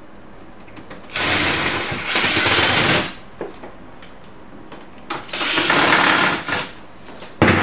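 Cordless drill-driver running in two bursts of about two seconds and a second and a half, driving screws into a laser printer's sheet-metal frame, then a single sharp click near the end.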